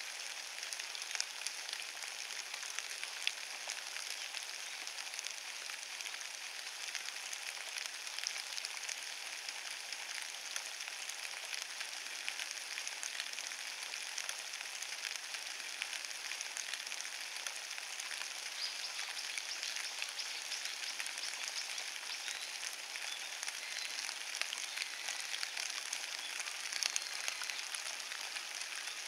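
Steady rain falling on a carpet of wet fallen leaves: an even hiss full of small, irregular drop ticks.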